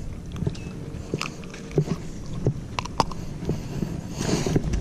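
Scattered light clicks and knocks as a small bass is unhooked and handled in the hand, with a short rush of noise near the end.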